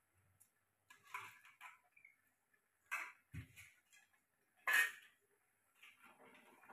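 A few light sharp knocks and clicks, the loudest a little under five seconds in, with a dull low thud around three and a half seconds in, as soaked rice is tipped into a pressure cooker of chicken gravy.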